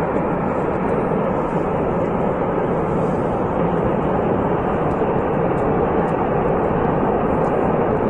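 Steady rumbling noise of a rockslide, rock and debris pouring down a mountain slope.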